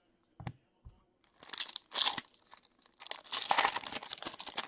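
Two soft knocks, then the foil wrapper of a hockey card pack being torn open and crinkled, in two spells of crackling, the second a little over a second long.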